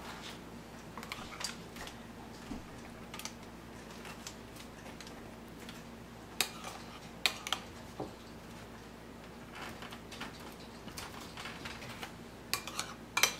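Scattered light clicks and taps of a metal spoon scooping melted garlic butter from a ceramic bowl and working it into a cut loaf, with a few sharper clinks in the middle and a quick cluster near the end.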